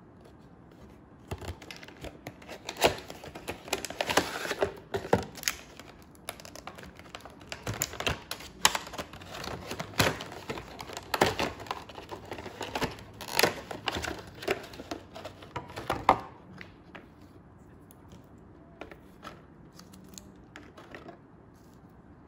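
Thin clear plastic packaging crinkling and crackling with sharp clicks as hands pull a clamshell insert apart. The handling stops about sixteen seconds in, followed by a few softer crinkles of a small plastic bag.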